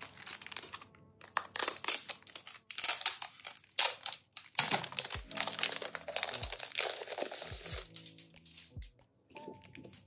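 Plastic wrapping crinkling and rustling in irregular bursts as a photobook is handled and pulled out of it, dying away about eight seconds in. Soft background music plays underneath.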